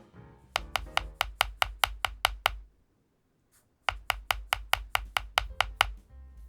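Keystrokes on a DAREU COOL60 magnetic-switch keyboard: two runs of about eleven evenly spaced key presses, some five a second, each a sharp click with a low thump, separated by a pause of about a second.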